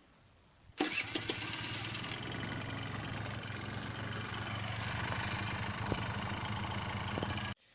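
Honda Dio 27 scooter's 50 cc two-stroke single-cylinder engine starting about a second in and then running steadily, freshly rebuilt with a new cylinder, piston and rings. It stops abruptly near the end.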